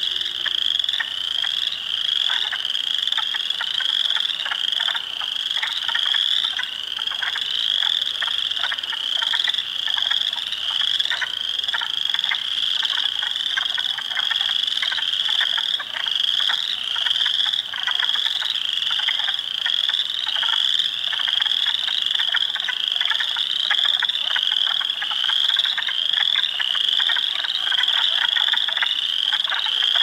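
A dense swamp chorus of spring peepers, many frogs overlapping in a steady stream of short, high, rising peeps. Beneath them runs a lower layer of rapid clucking and trilling from wood frogs and chorus frogs.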